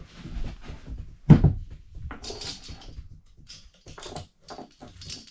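Loose metal saw chain clinking and rattling as it is handled along a long Stihl chainsaw guide bar, with one heavy knock just over a second in.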